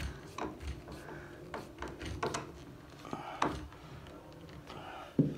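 Screwdriver turning a bolt into a bed frame joint: scattered light clicks and knocks of the tool, bolt and frame, with a louder knock near the end.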